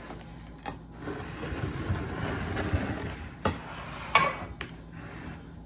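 Glass soup bowls and plates knocking and clinking as they are set down and shifted on a counter, a few sharp clinks with the loudest about four seconds in, and soft handling noise between them.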